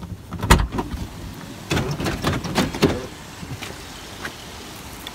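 A run of knocks and clunks as someone gets out of a parked car, among them a car door opening and shutting and the phone being handled. After about three seconds they give way to a fainter steady background hiss.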